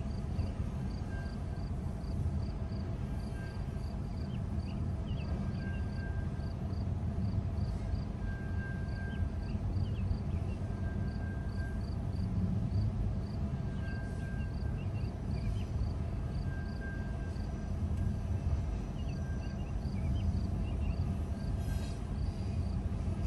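Southbound intermodal freight train rolling past, a steady low rumble of wheels on rail with no break or change.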